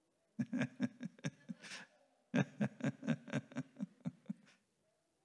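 A person laughing in two short bouts, each a quick run of ha-ha pulses, in reaction to a remark in a sermon.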